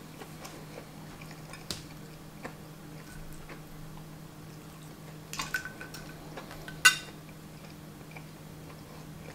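Mouth-close eating with cutlery on a ceramic plate: soft chewing and small clicks, then a metal fork set down on the plate with a sharp, ringing clink about seven seconds in. A steady low hum runs underneath.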